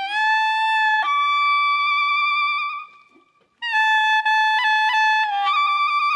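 Music: a single melodic instrument playing a slow tune of long held notes with a bright, reedy timbre. The tune stops briefly about halfway through, then picks up again with a few quick ornamental notes.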